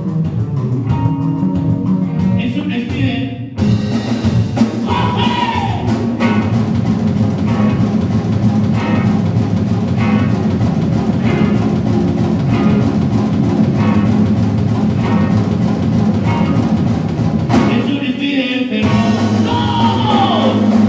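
Live rock band playing: electric guitars, bass guitar and drum kit, with a voice singing. The full band comes in loudly after a short dip a few seconds in, and the guitars and cymbals drop out for about a second near the end before the band comes back in.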